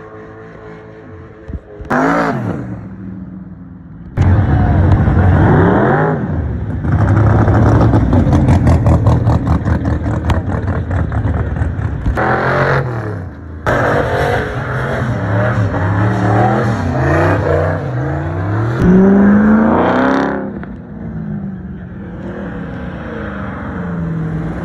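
Car V8 engines revving hard at a street burnout, the pitch climbing and falling again and again. There is a rapid pulsing stretch in the middle, and the sound jumps abruptly several times.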